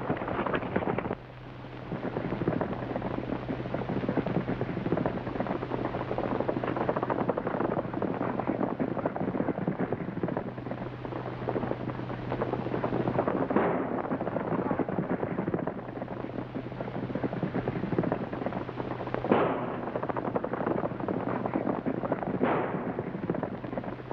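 Gunfire in a Western gunfight: a continuous crackle of shots, with a few louder single shots standing out in the second half. Under it runs the steady low hum of an early sound-film track.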